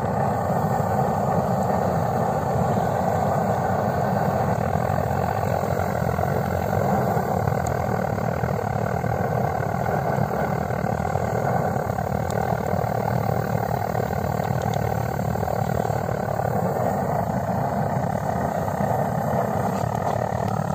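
Gas-cartridge blowtorch flame burning steadily on a low setting under a frying pan, a continuous even rushing noise that does not change.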